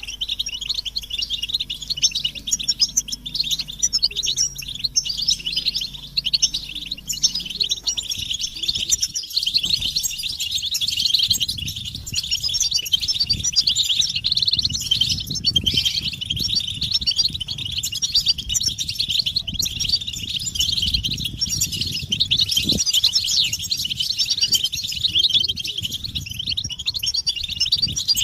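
A group of European goldfinches twittering and calling nonstop, a dense run of quick, high chirps: the excited group chatter and mating calls of goldfinches.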